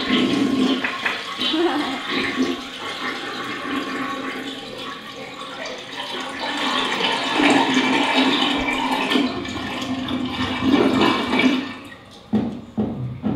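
Toilet flushing: a long rush of water that swells and ebbs and dies away near the end.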